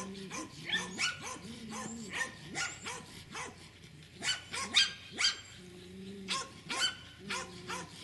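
Beagle puppies giving short yips and small barks in a rapid string, with some lower drawn-out calls between them; the loudest come about five seconds in.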